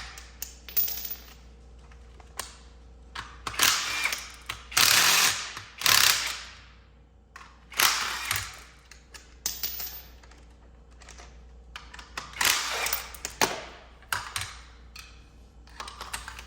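Hand ratchet wrench clicking in short bursts, working 14 mm bolts loose on a power seat's rail assembly.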